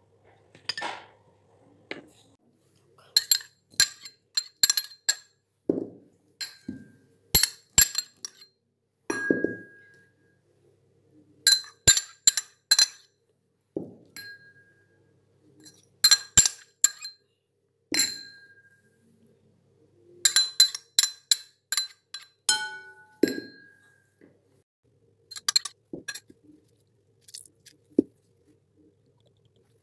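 Clear glass salad bowl clinking again and again in quick clusters of light strikes, each ringing briefly, with a few duller knocks in between.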